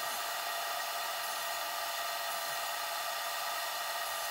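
SawStop 1.75 hp table saw running steadily, a constant whirring with a faint steady whine, as the crosscut sled carries a board toward the blade.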